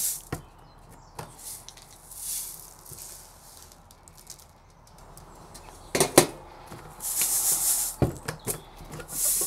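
Grains of coarse sand aggregate pouring and rattling out of a stainless-steel test sieve. Sharp metal clinks and knocks about six and eight seconds in, as the sieves are lifted off and set back on the stack.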